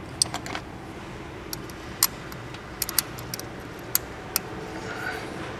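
Metal hand tools clinking while valve lash is set on a rocker arm: wrenches in the hand and a steel feeler gauge knocking against the valve train give about ten sharp, scattered clicks over a low steady background noise.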